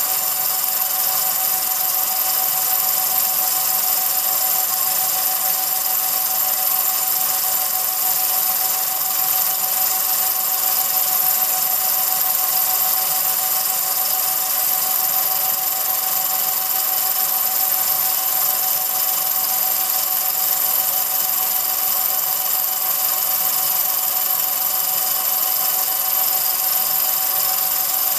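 Home-movie film projector running steadily: a constant mechanical whir with a high-pitched whine.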